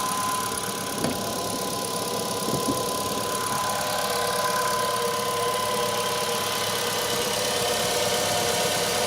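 Ravon R3's engine idling steadily after a cold start, heard under the open hood, with a couple of light clicks in the first few seconds. No alternator-belt squeal: the belt's squeal is cured, put down to small stones caught in its grooves that have since been picked out.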